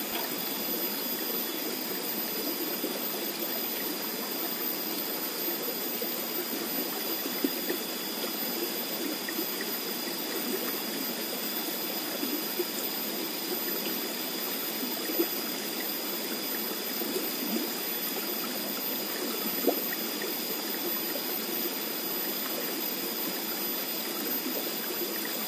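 Water rushing steadily along a small irrigation channel, an even, unbroken rush, with a few faint clicks here and there and a thin steady high tone above it.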